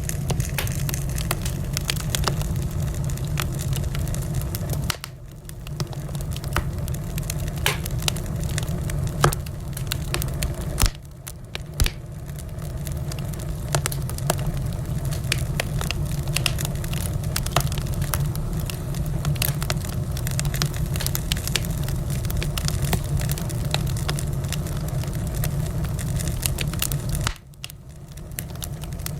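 Wood fire burning, with frequent sharp crackles and pops over a low, steady rumble. It drops briefly quieter three times.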